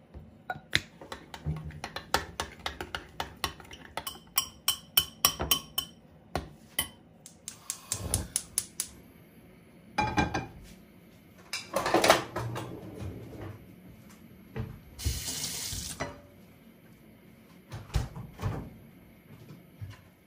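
A fork beating eggs in a glass bowl: quick, regular clinks of metal on glass for the first several seconds, then scattered clatter of kitchenware. A tap runs briefly about three quarters of the way through.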